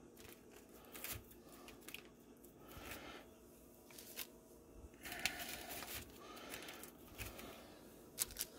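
A few faint, short rustles and crinkles of hand handling: cheese slices being peeled apart and laid on the food in a slow-cooker pot lined with a plastic liner bag.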